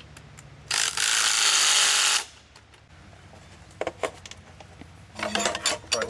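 Power drill fitted with a socket running for about a second and a half, driving down a nut that bolts the base of a steel arch to its plate. A few light metal clicks follow, then tools clinking near the end.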